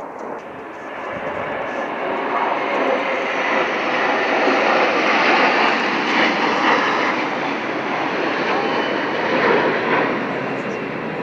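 Formation of Air Force Thunderbirds F-16 Fighting Falcon jets flying over. The jet noise builds over the first two seconds, is loudest around the middle and eases slightly near the end.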